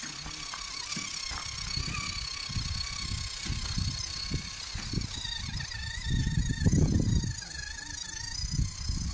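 Electric motor and gearbox of a WPL RC Mercedes SK logging truck whining steadily, the pitch wavering as the throttle changes while it crawls over slush. Irregular low rumbles come and go underneath, loudest about two-thirds of the way through.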